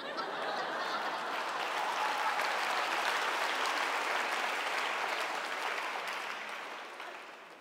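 Audience applauding: dense clapping that starts at once, holds for several seconds, then dies away near the end.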